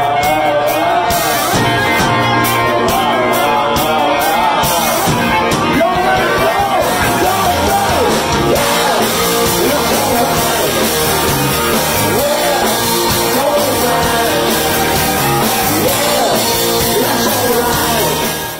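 Blues-rock band playing, loud and steady, fading out right at the end.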